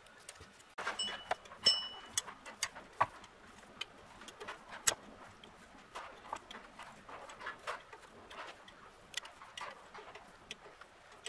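Irregular metal clicks and clinks of hand tools and small parts being worked at a U-joint at the back of a transmission, with a short metallic ring about a second in.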